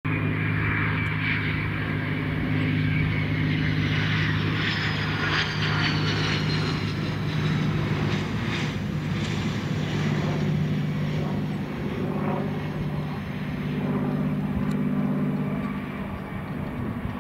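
Dassault Falcon 900EX's three rear-mounted turbofan engines on approach and landing: a high whine that falls in pitch as the jet passes, over a steady low engine hum, as it touches down and rolls out.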